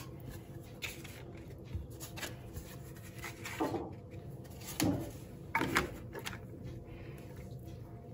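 Dry lasagna sheets being laid into a glass baking dish and pressed down by hand: faint taps and rubbing of the stiff pasta on the glass, with three louder knocks between about four and six seconds in.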